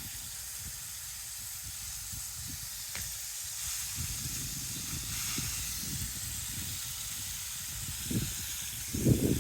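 Steady hiss of water spraying under pressure from an irrigation hose, with low rumbling and a few louder low thuds near the end.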